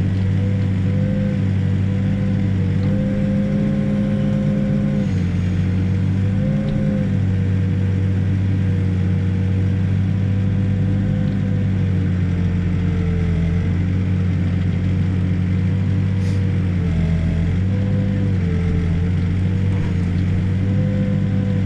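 Backhoe's diesel engine running steadily while digging, its pitch dipping and recovering several times as the hydraulics take load.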